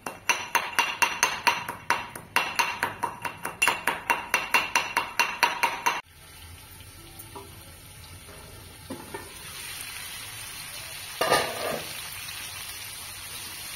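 Rapid metal-on-metal strikes, about four or five a second with a short break about two seconds in, from pounding inside a small steel cup; each strike rings. Suddenly, six seconds in, this gives way to the steady sizzle of pork and potatoes frying in a wok, with one clatter about eleven seconds in as the lid comes off.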